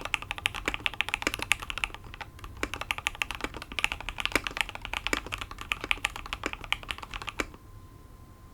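Fast typing on a Matrix 2.0 ADD mechanical keyboard with Sp-Star Meteor White linear switches, an aluminum plate, TX stabilizers and foam-filled case: a dense run of key clacks with a brief lull about two seconds in. The typing stops shortly before the end.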